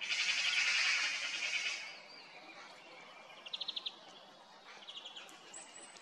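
European greenfinch singing: a loud, rapid buzzy trill for the first couple of seconds, then softer short trills of quick repeated notes and a brief high chirp near the end.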